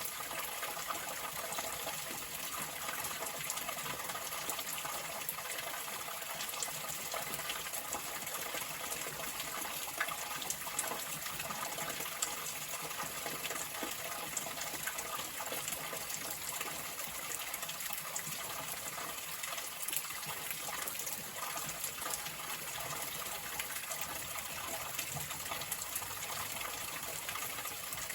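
Running water in a steady, even rush, with small splashes throughout.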